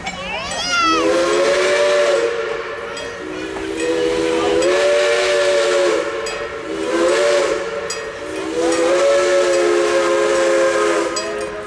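Steam locomotive whistle (Ventura County #2) sounding a three-note chord in four long blasts with short breaks between them.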